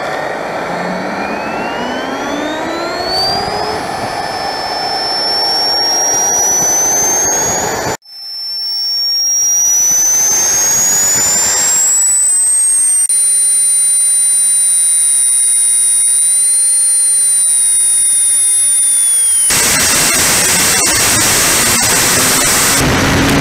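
Radio-controlled model jet's small turbine engine spooling up, its whine rising steadily in pitch. It settles into a steady, very high whine, and about 20 seconds in it throttles up into a loud rushing roar.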